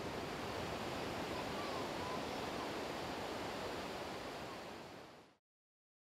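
Ocean surf washing onto a sandy beach, a steady rush, fading out to silence about five seconds in.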